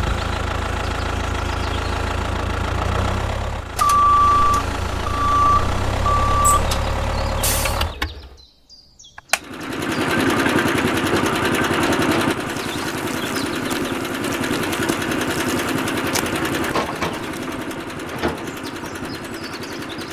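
A vehicle engine running steadily, with three short, even beeps like a reversing alarm about four to six seconds in. After a short break near eight seconds, a louder, rougher engine sound carries on.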